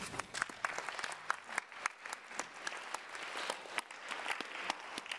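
Audience applauding, with separate claps standing out.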